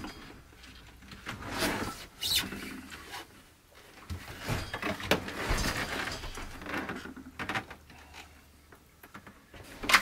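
An RV propane/electric absorption refrigerator being worked out of its wall cabinet by hand: scraping and sliding noises with scattered knocks and bumps, and a sharp knock near the end.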